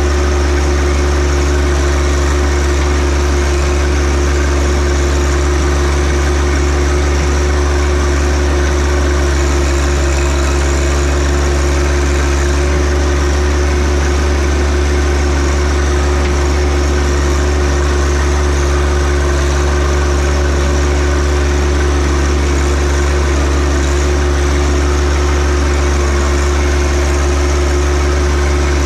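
John Deere 1025R compact tractor's three-cylinder diesel engine running steadily at an even speed, loud and close.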